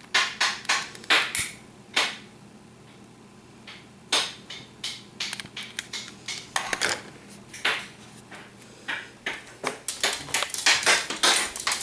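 Several sharp clicks in the first two seconds as a long utility lighter is triggered at a birthday candle, then scattered clicks and knocks, thicker near the end, as the cake plate is handled and carried.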